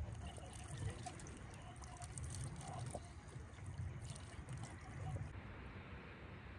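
Water trickling from a watering can over a person's hands and pattering onto the ground. The trickling cuts off suddenly about five seconds in, over a low rumble underneath.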